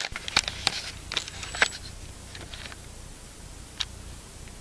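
Handling noise from a camera being moved and set in place over a bow: a quick run of sharp clicks and knocks in the first two seconds and one more near the end, over a low rumble.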